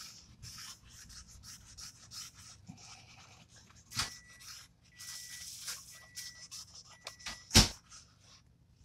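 Fine-grade (0000) steel wool rubbed in short back-and-forth strokes over the bare aluminum face of a cylinder head, a dry scratchy scrubbing. A sharp knock comes about four seconds in, and a louder one near the end.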